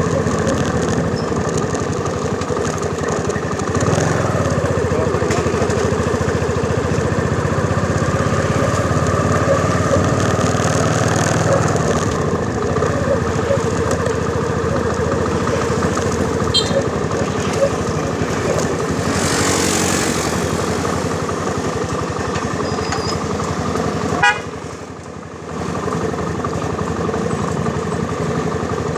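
Motorcycle ridden through town traffic: its engine running steadily under a low rumble of wind on a handlebar-mounted phone's microphone. A sharp knock comes about 24 seconds in, followed by a brief drop in level.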